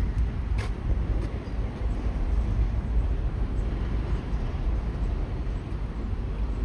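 Steady low rumble of outdoor city noise, with one short click about half a second in.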